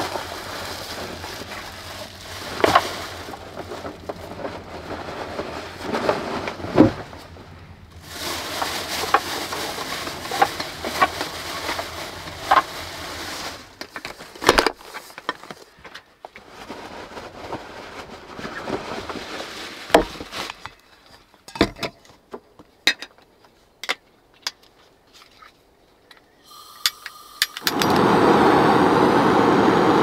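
Rustling of plastic bags and rummaging in a backpack, then scattered knocks and clicks as things are set down on a wooden table. Near the end a handheld gas torch on a gas canister is lit and burns with a loud steady hiss.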